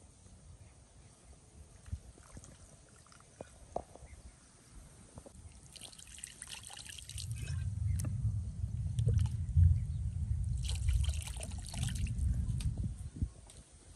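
Water trickling and splashing as raw chicken wings are rinsed by hand, in two spells about six and eleven seconds in. A low rumble runs under the second half and is the loudest part; a few small handling clicks come before.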